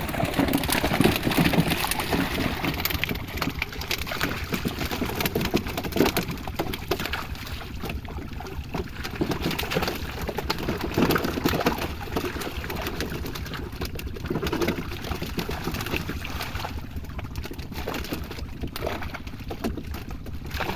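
Pond water splashing and sloshing, with many small irregular splashes.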